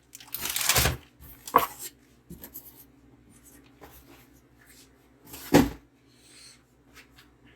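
Packaging and phone cases being handled: a rustle of plastic packaging in the first second, a sharp click, and a single louder bump a little past halfway, with faint handling noise between.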